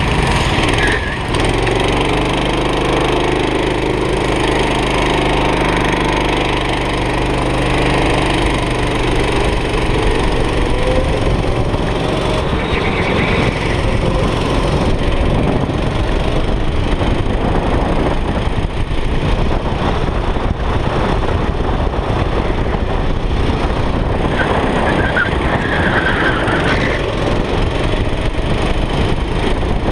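Go-kart engine heard onboard from the driver's seat. It runs at low, steady revs for the first several seconds as the kart moves off, then revs up and runs hard with a dense, rattly note for the rest, with a few brief dips in revs.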